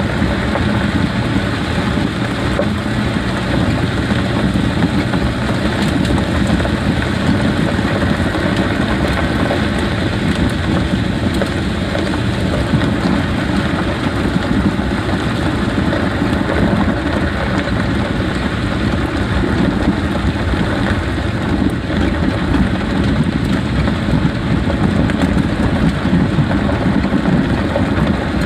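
Jeep being driven, with steady tyre, road and engine noise throughout.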